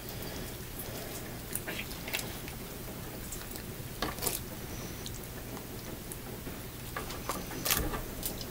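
Scattered soft wet clicks and squelches of hands pulling the entrails out of a freshly shot squirrel, over a steady low hum.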